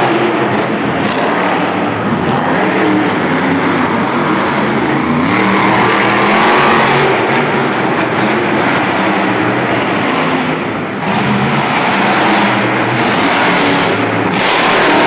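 Monster truck supercharged V8 engines running loudly, revving up and down as the trucks accelerate over the dirt jumps, with a brief drop about eleven seconds in.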